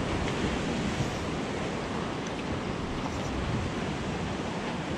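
Steady wind rush on the microphone over open saltwater, with waves washing around.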